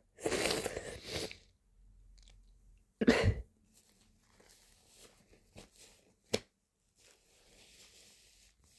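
A long noisy breath in the first second and a half, then about three seconds in a short sharp smack of a hand slapping a bare thigh, and a small single click a little after six seconds.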